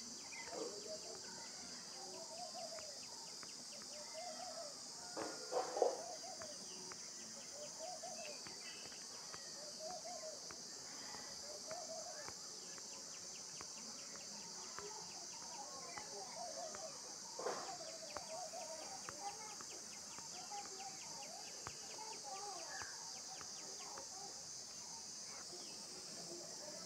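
Faint background ambience: a steady high hiss with soft chirps repeating every second or two, and two brief louder noises, about five seconds in and again near seventeen seconds.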